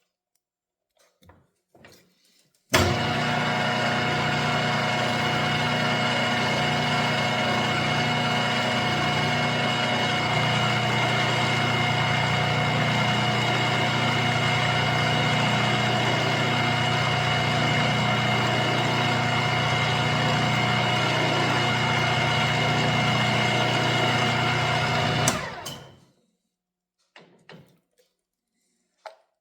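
Milling machine motor switched on about three seconds in, running steadily with a constant hum and whine, then switched off a few seconds before the end and quickly winding down. A few faint clicks before and after it.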